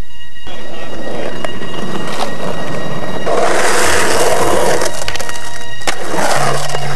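Loud music soundtrack, with skateboard wheels rolling on concrete and a few sharp knocks joining it from about three seconds in.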